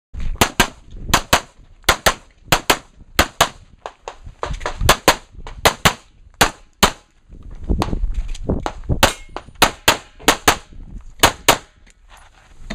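Handgun fired rapidly during a USPSA action-pistol stage: over two dozen sharp shots, mostly in quick pairs, with short pauses between strings.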